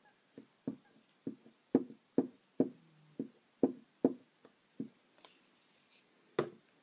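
Glue stick pressed and rubbed onto a small paper piece on a wooden tabletop, making a run of dull knocks about two a second that stops after about five seconds, with one more knock near the end.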